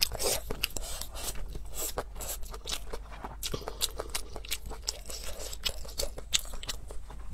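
A person chewing a mouthful of food with the mouth closed, picked up close: a dense, irregular run of small wet clicks and smacks.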